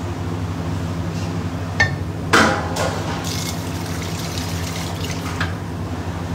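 Prawn and potato curry bubbling at a boil in a steel pan, over a steady low machine hum. A short clink comes a little before two seconds in, then a louder brief clatter just after.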